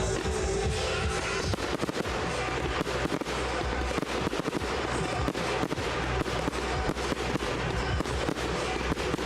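Fireworks display going off in a rapid, dense string of bangs and crackles, starting about a second and a half in, over music.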